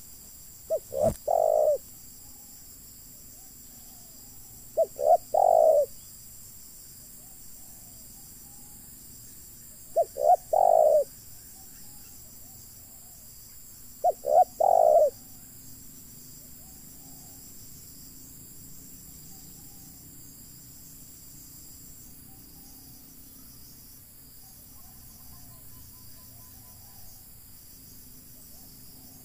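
Spotted dove cooing: four phrases about four to five seconds apart, each two short notes followed by a longer drawn-out note.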